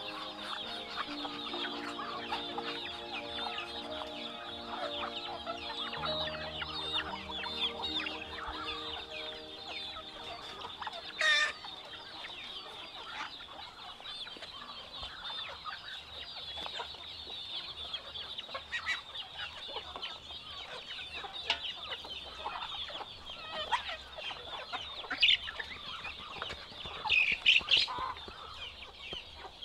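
Farmyard poultry clucking and calling in a dense, continuous chatter, with a few louder sharp calls about eleven seconds in and again near the end.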